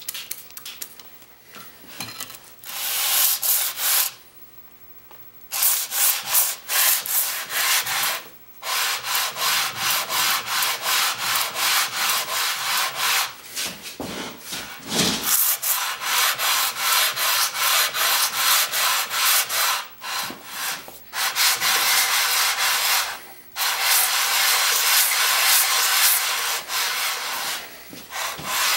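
Cast-iron sole of an old Record trying plane scrubbed back and forth on wet 80-grit wet/dry sandpaper: a rapid rhythmic scraping of strokes, broken by a short pause about four seconds in and a few brief stops. This is the coarse stage of flattening a worn plane sole.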